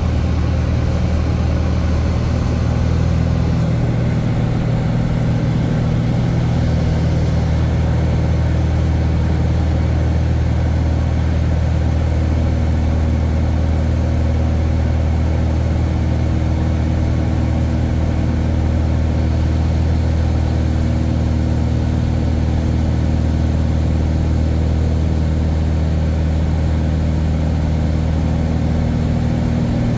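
Steady drone of a light propeller airplane's engine and propeller heard from inside the cabin; the tone shifts slightly a few seconds in.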